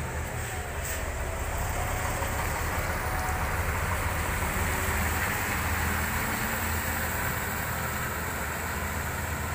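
Heavy diesel truck loaded with wood pulling uphill past at close range, its engine running in a low steady drone under load. Tyres hiss on the wet road, swelling in the middle as it goes by.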